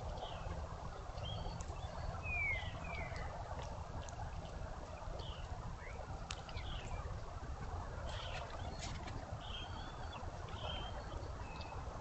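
Small birds calling in short, scattered chirps, including a pair of quick falling calls about two seconds in, over a steady low rumble.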